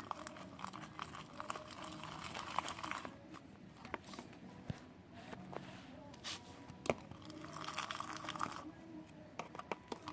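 Glue-and-detergent slime being stirred and worked by hand: soft sticky squelching and crackling, with many small irregular clicks as the still-sticky mixture pulls apart and slaps together.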